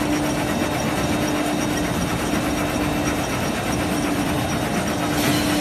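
Clutch facing weaving machine running: a steady, dense mechanical clatter over a continuous hum, with a brief hiss near the end.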